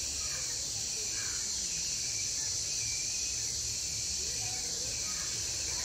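Steady high-pitched chorus of insects, unbroken throughout, over a low outdoor rumble.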